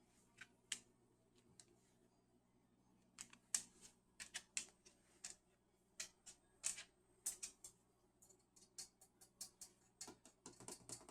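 A cockatoo tapping, a run of sharp clicks. They come unevenly at first, then quicken near the end into steady drumming of about four taps a second.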